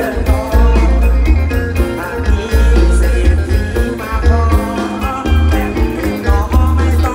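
Live band music with singing: a heavy pulsing bass and drums under electric guitars and keyboards, with a lead vocal over the top.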